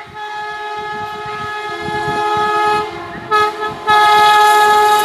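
WAP5 electric locomotive's horn sounding continuously as the express approaches at speed: a steady multi-tone horn chord that grows louder, a second lower note joining about two seconds in, short breaks about three seconds in, then full and loud for the last second. Low clatter of the train runs underneath.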